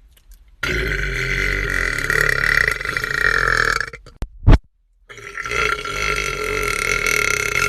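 A man's long, drawn-out burps: one starts about half a second in and holds steady for over three seconds, and a second long one starts about five seconds in. Between them comes a single short, sharp pop.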